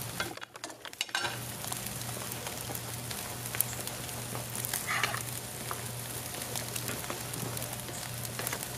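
Hickory wood fire crackling, with steady sizzling from T-bone steaks cooking directly on the hot coals.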